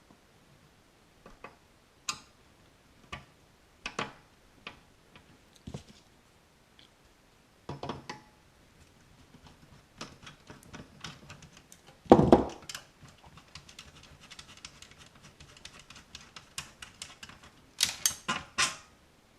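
Small tools and metal parts clicking, tapping and clattering while a Bremi BRL200 CB linear amplifier is being taken apart, with one louder knock about two-thirds of the way through and a quick run of clatters near the end.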